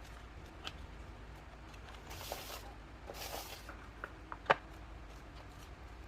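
Handling of plastic toy kitchen pieces and their packaging: two short rustles, a few light ticks, and one sharp plastic click about four and a half seconds in.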